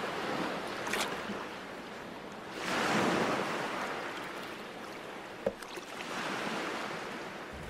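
Sea waves washing in, swelling up about three seconds in and again around six seconds, with a couple of faint knocks.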